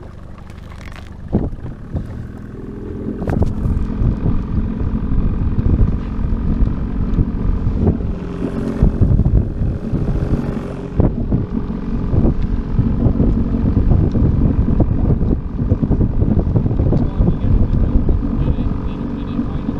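Evinrude E-TEC 60 two-stroke outboard running at raised idle in its automatic winterization fogging mode, the engine note coming up about two seconds in and then holding steady, with wind on the microphone.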